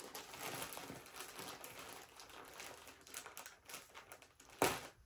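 Plastic packaging rustling and crinkling as it is handled, in irregular bursts, with one louder crackle near the end.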